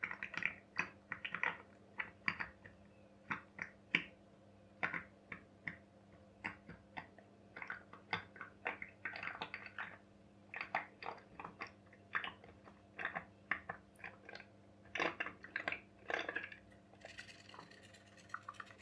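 Pop-pop boat's candle-heated boiler running, giving an irregular run of short, wet crackles and pops, about two a second, with a faint hiss near the end. The boiler is leaking steam at the side but still drives the boat.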